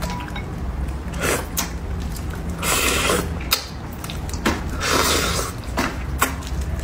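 A person eating braised fish: several short, wet slurping and chewing sounds a second or so apart, with a few light clicks.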